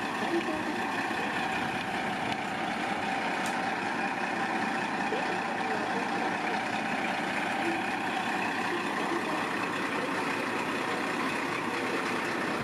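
KiHa 40 diesel railcar's engine idling steadily while the railcar stands still.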